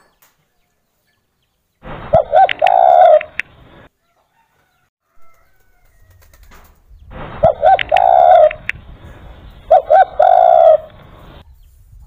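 Spotted dove (derkuku) cooing three times: once about two seconds in, then twice close together in the second half. Each phrase is two short notes followed by one longer, drawn-out coo.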